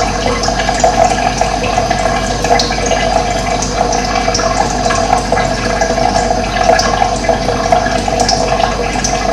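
Running water, a stream flowing steadily, with faint short bird chirps scattered over it.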